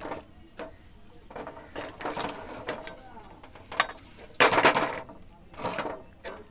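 A metal spatula scraping and clinking in a steel wok of cooked poha, with steel dishes clattering. A louder rasping scrape about four and a half seconds in lasts about half a second.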